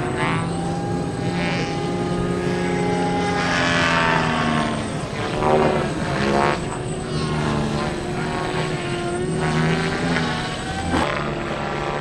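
Large electric RC helicopter (SAB Goblin 700) flying fast passes: its rotor and motor whine keeps going, the pitch sliding down and up as it sweeps by, loudest about five and a half seconds in.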